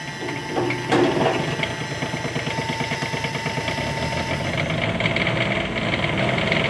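Bobcat 320 mini excavator's small diesel engine starting from cold after its glow plugs were warmed: it cranks, catches about a second in, then settles into a steady, rapid diesel clatter.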